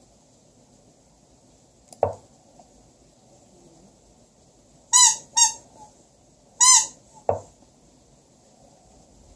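Three short, high squeaks from a squeaky toy gnome, two close together about five seconds in and one near seven seconds, the loudest sounds here. Two single knocks of the lichess board's move sound, about two seconds in and just after the last squeak, mark a move by each side.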